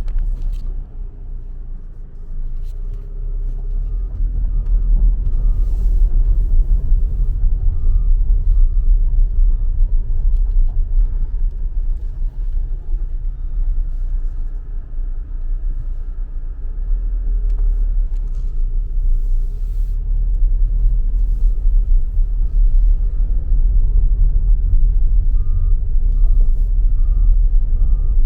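Diesel engine of heavy construction machinery running with a steady low rumble, dipping briefly near the start and then building up again. A faint beeping alarm, a couple of beeps a second, sounds in two runs: about a third of the way in and near the end.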